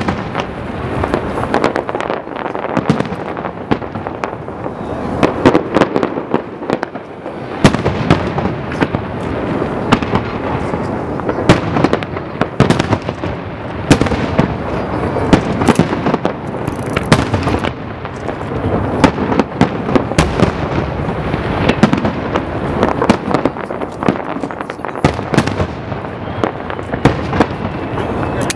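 Aerial firework shells bursting in a continuous barrage: many sharp bangs in quick succession, loud and unbroken.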